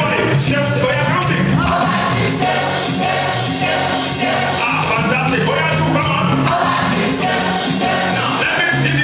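Live Yoruba gospel music: a male lead singer on a microphone, with other voices joining, over a band with drums and percussion keeping a steady beat.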